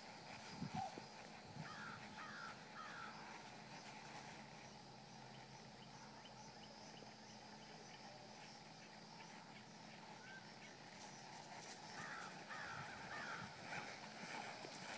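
Crows cawing faintly: a series of three caws about two seconds in, and another series of about four near the end.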